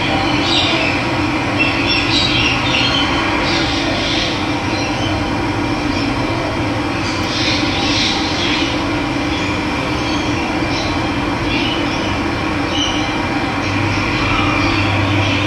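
Steady rush of running water, with birds chirping on and off over it.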